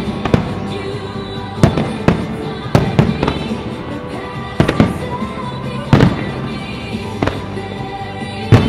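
Aerial fireworks shells bursting with sharp bangs, about ten in all at uneven intervals, over music playing steadily underneath.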